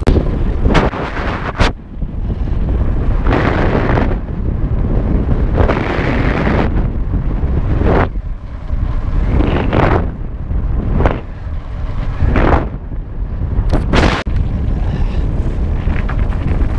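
Wind buffeting the microphone of a camera riding on a moving mountain bike, a heavy low rumble that swells in rushing gusts every second or two, with a few sharp knocks.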